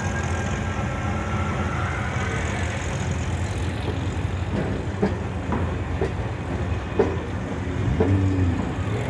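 Low rumble of car engines running steadily, with a few sharp knocks about five to seven seconds in and a brief engine rev near the end.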